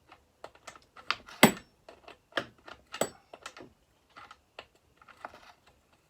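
Clatter of small hard parts and tools being handled on a workbench: an irregular run of light clicks and knocks, with one louder knock about a second and a half in.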